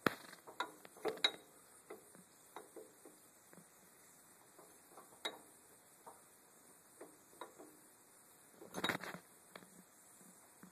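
Faint scattered metallic clicks and clinks, with a short cluster of clatter about nine seconds in, from gears and shift parts being handled inside the open gearbox of a Yanmar YM2000 tractor.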